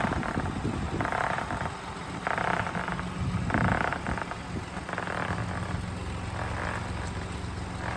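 Car tyre making an abnormal rhythmic growling noise, one burst about every second, the bursts weakening in the second half, over a steady low hum. The noise comes from the tyre itself, not from rubbing or from the drivetrain.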